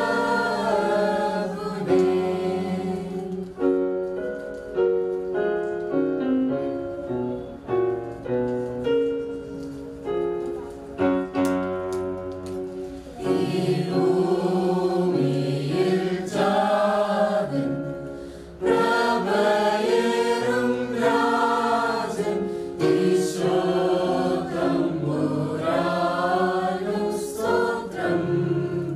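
Mixed choir of men's and women's voices singing a Christmas carol together, accompanied by an electronic keyboard.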